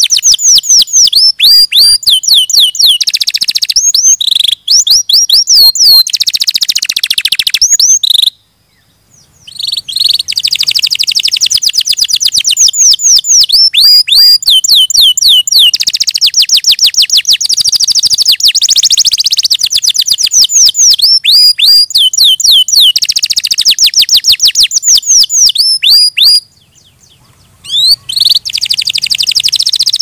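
Domestic canary singing a long, loud song of fast rolling trills and quick runs of down-slurred notes, high-pitched, broken by two short pauses, about 8 seconds in and about 26 seconds in.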